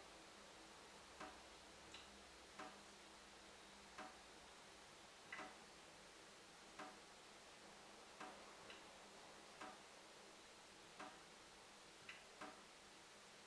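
Tap dripping: single drops land at uneven intervals, about one a second, each a short sharp tick over a faint steady hiss.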